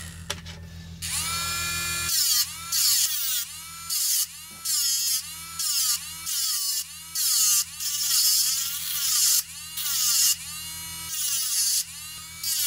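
Small DC motor of a homemade mini sander spinning up with a rising whine. A thin metal rod is then pressed against its spinning sanding disc about once a second: each touch gives a harsh grinding burst, and the motor's whine drops in pitch under the load and climbs back when the rod is lifted.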